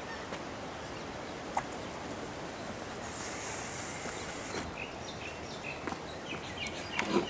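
Snowboard carrier's slide-out section sliding along its rail, a soft hiss lasting about a second and a half midway, with a few light clicks near the end. Birds chirp briefly in the background.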